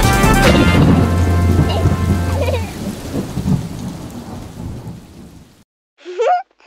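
Rain and thunder effect: steady rain with a low rumble of thunder, fading out over a few seconds as the last notes of a song die away. Near the end comes a brief rising tone.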